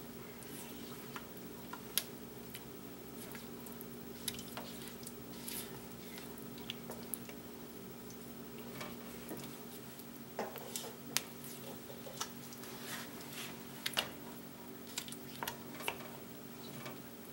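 Silicone spatula stirring and scraping a thick melted chocolate mixture around a large nonstick pot, with scattered light clicks and knocks against the pot, more frequent in the second half, over a steady low hum.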